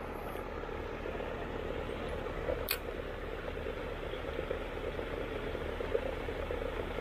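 Pond paddlewheel aerator running, a steady mechanical hum with churning water. There is a single sharp click about two and a half seconds in.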